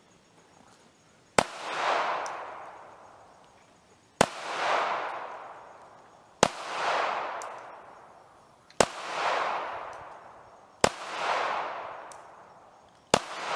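Six pistol shots from a Ruger LCP II .380 pocket pistol, fired one at a time about two seconds apart. Each sharp crack is followed by a long rolling echo that dies away over about two seconds.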